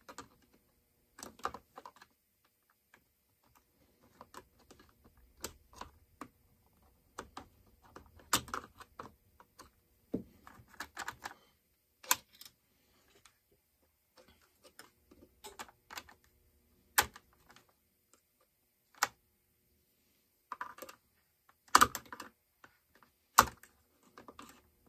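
Irregular small clicks and clinks of hand tools and parts as a Farmertec MS660 chainsaw is taken apart at the carburetor, with a few sharper clacks near the end.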